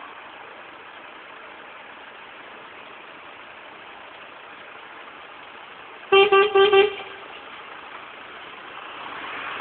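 Truck horn giving three quick toots about six seconds in, over the steady noise of vehicles running.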